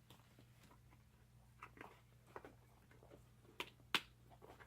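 Faint handling of a purse stuffed with tissue paper: scattered light crinkles and small clicks, with two sharper clicks near the end.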